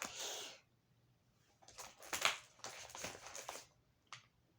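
Packaging being handled while the kit is opened: rustling, crinkling noise in two stretches, then a single sharp click near the end.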